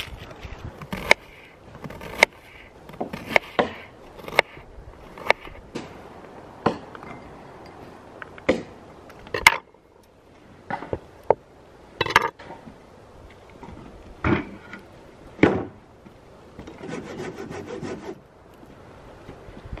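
Knife chopping vegetables on a cutting board: separate sharp knocks of the blade on the board, roughly one a second, with a short stretch of scraping near the end.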